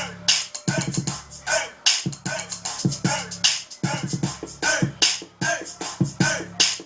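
Hip-hop beat from a Native Instruments Maschine groove controller: a repeating pattern of sharp drum hits over a pulsing bass line, with scratch-like sounds.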